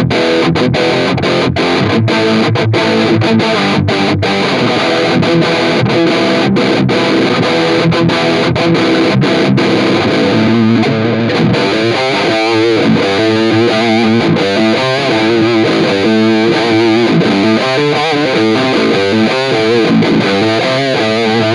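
Distorted electric guitar chords played through a DigiTech Whammy 5 pitch-shifting pedal, set to a half-step drop tune in its polyphonic mode, which tracks full chords cleanly. The first half is struck chords with short breaks between them; from about midway the chords waver up and down in pitch.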